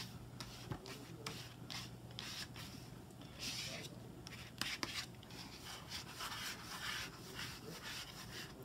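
An old plastic card rubbed and scraped in repeated soft strokes across wet, ink-soaked printing paper, spreading the ink, with a few small clicks.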